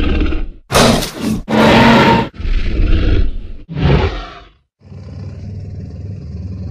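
Tyrannosaurus rex roar sound effects: four short, loud roars in the first four and a half seconds, then, after a brief break, a steady low rumbling growl.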